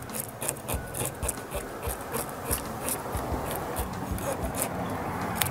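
Kitchen knife blade scraping the scales off a whole raw fish on a plastic cutting board, in quick repeated rasping strokes.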